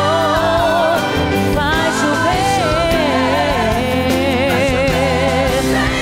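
A woman singing a gospel worship song live over instrumental backing, holding long notes with a wide vibrato and sliding runs between them.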